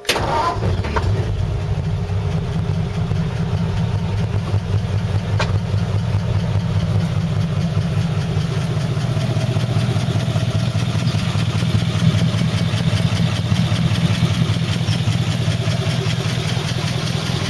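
1950 Ford F1's original flathead V8 catching on its pushbutton starter and settling straight into a steady idle through twin glasspack mufflers.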